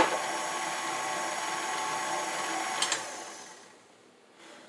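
Electric stand mixer running steadily, mixing dry muffin ingredients. A click comes just before three seconds in, and the motor then winds down to quiet over about a second.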